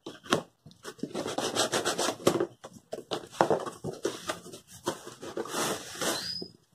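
Cardboard shipping box being opened by hand: the flaps scrape and rub against each other in irregular strokes, with a short squeak near the end.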